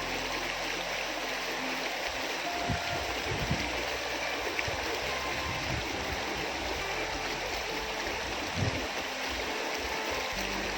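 Small river rushing steadily, its water noise even and unbroken, with a few low thuds about three seconds in and again near the end.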